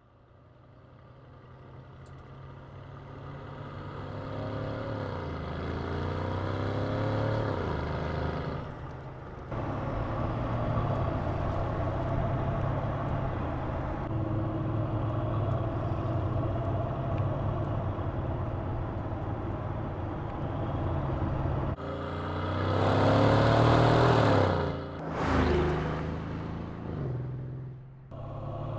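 Mercedes-AMG GLE 63 S's twin-turbo V8 engine accelerating and cruising, fading in from silence. Its note climbs with revs several times, with abrupt jumps in level, and is loudest with a rising rev about three quarters of the way through.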